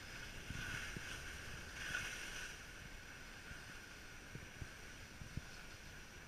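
Skis sliding over groomed snow, a steady hiss that swells about half a second in and again around two seconds in, with a few brief low thumps of wind and handling on the camera microphone.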